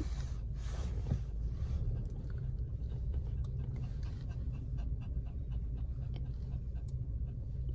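Small dog panting quickly with its tongue out, soft regular breaths over the low steady hum of a car.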